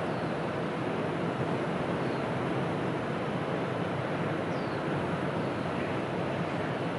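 Steady rushing outdoor noise with a few faint, short, high bird chirps.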